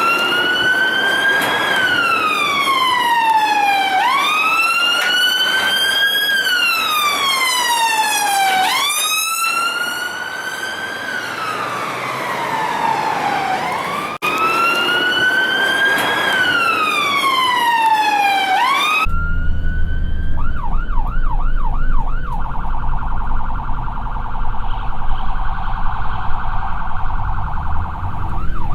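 Emergency vehicle siren in a slow wail: its pitch sweeps up and down about every four and a half seconds. About 19 seconds in it cuts to a different siren cycling rapidly up and down, several sweeps a second, over the low rumble of a vehicle.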